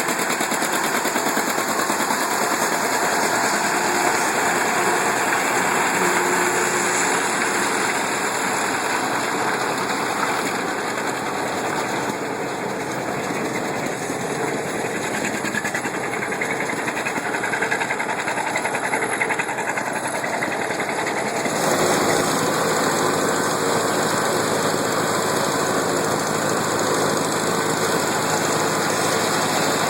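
Old farm tractor engines and harvesting machinery running steadily. About two-thirds of the way through the sound changes abruptly to a different, steadier engine drone.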